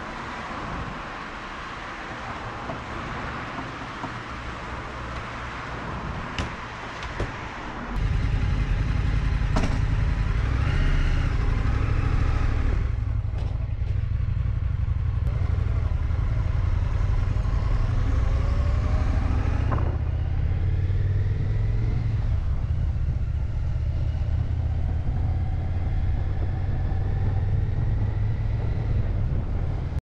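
Petrol running from a pump nozzle into a motorcycle's fuel tank, a steady hiss. About eight seconds in it gives way to a motorcycle on the move: a loud, steady low rumble of engine and wind, with the engine note rising now and then as it pulls through the gears.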